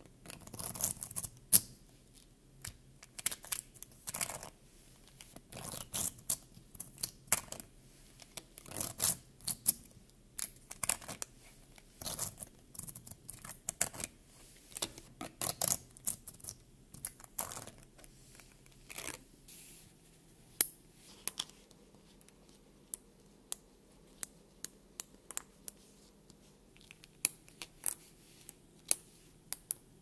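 Tesseract Set neodymium magnetic balls clicking and clacking against each other as layers of a ball sculpture are pried apart with a plastic card. The clicking is dense at first, then thins to separate sharp snaps as single balls click into place.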